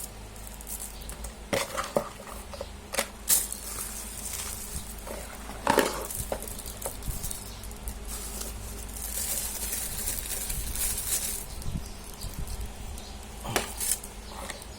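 Handling noise: scattered clicks and knocks of hard objects being picked up and set down, with a stretch of rustling a little past the middle.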